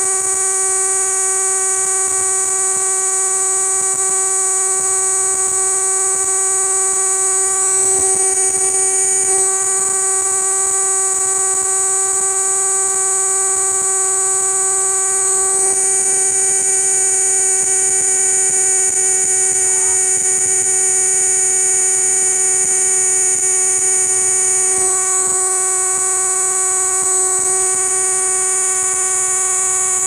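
Cicada singing close up: a loud, unbroken, buzzing whine held at a steady pitch, which wavers briefly twice.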